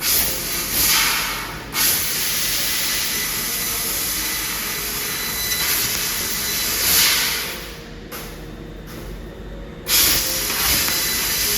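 Assist gas hissing hard from the cutting head of a 3000 W laser cutting machine as it cuts sheet metal, swelling now and then. It drops away for about two seconds near the end, then comes back abruptly as cutting resumes.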